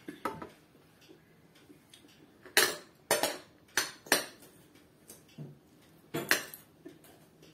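Cutlery clinking and scraping against a plate and glass dishes during a meal: about six sharp clinks, spaced a second or so apart.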